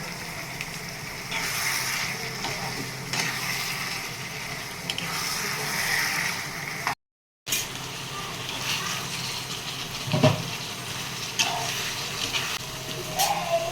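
Chicken sizzling as it fries in ghee in a kadai, with occasional clicks and scrapes of a spoon stirring it against the pan. A low steady hum runs beneath, and the sound drops out for half a second about seven seconds in.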